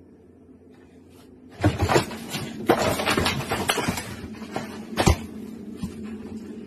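Crashing and clattering as a refrigerator lurches under a man jumping off its top and its door swings open: a quick run of knocks and rattles starting about a second and a half in, with the loudest bang about five seconds in.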